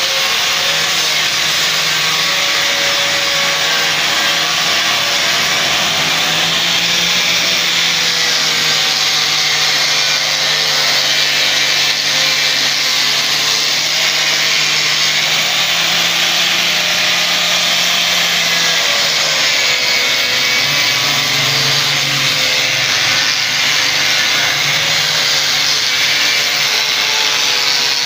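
Angle grinder with a polishing wheel running steadily against a stainless steel railing tube, a dense grinding hiss over a motor whine whose pitch wavers as the wheel is pressed on and eased off.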